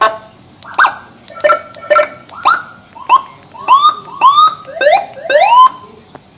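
Whelen electronic siren, worked from the HHS handheld controller and sounding through an SA314P speaker, giving a string of about ten short rising whoop chirps, roughly two a second.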